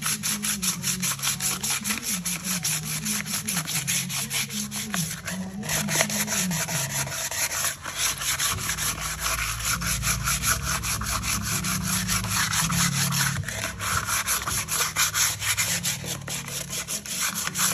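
Hand sanding of a metal trailer rim with an abrasive pad: rapid, scratchy back-and-forth strokes, about five a second, with a couple of brief pauses. The rim is being scuffed dull so that new paint will stick.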